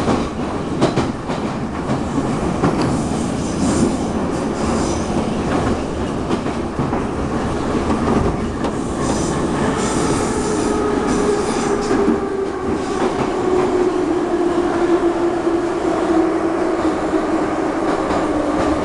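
Moscow Metro train heard from inside the car, running through the tunnel with a steady rumble, a few sharp clacks over rail joints early on, and stretches of high wheel squeal. In the last seconds its motor whine falls steadily in pitch as the train slows into a station.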